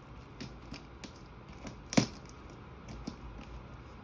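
Light clicks, taps and rustles of a hand adjusting a deodorant stick and body-wash bottle among the packing in a plastic gift basket. There is one sharper knock about two seconds in.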